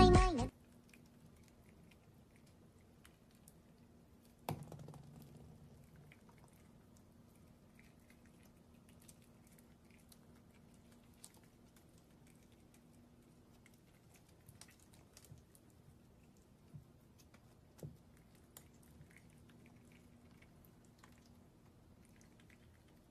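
Sparse, faint small clicks of a prairie dog nibbling a piece of corn, with one sharper knock about four and a half seconds in, over a faint steady hum.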